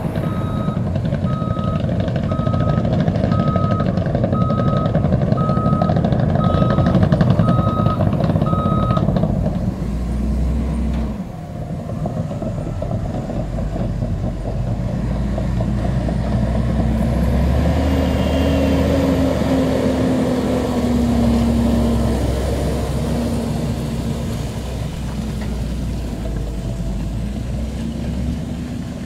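Heavy diesel earthmoving machinery running, with a reversing alarm beeping at an even pace until about nine seconds in. After that a diesel engine drones under load, its pitch rising and then falling, as a Fendt Vario tractor pulling a loaded dump trailer drives past.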